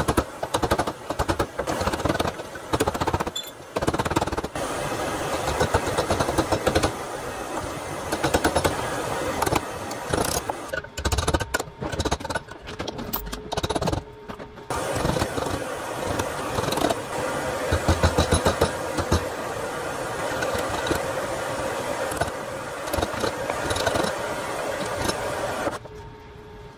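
Hammer blows on a brass collar being shaped over a brass rod held in a bench vise, coming in irregular runs of sharp strikes over a steady background noise.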